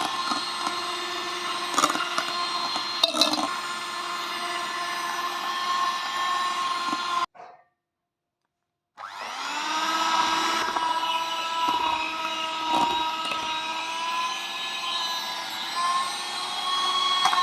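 Electric hand blender motor running steadily at high speed while mixing, with a few short knocks. It switches off about seven seconds in, and after a second or two of silence it starts again, its whine rising in pitch as it spins up, then runs steadily.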